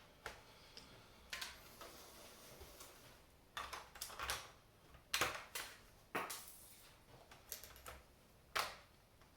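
Irregular plastic clicks, knocks and short scrapes from handling an open laptop's case after a RAM stick has been seated.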